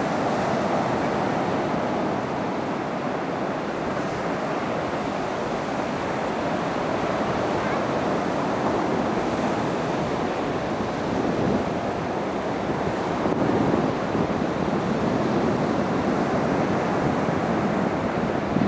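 Surf breaking on a sandy beach: a steady rush of waves, with wind on the microphone.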